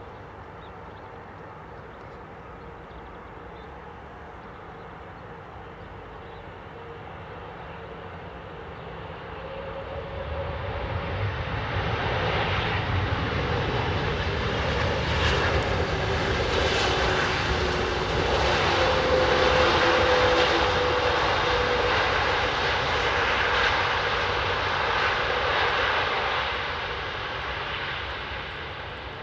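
Airbus A330-343E jetliner's Rolls-Royce Trent 700 turbofans running as it passes: a steady rushing jet noise that swells about a third of the way in, stays loud through the middle, and fades near the end.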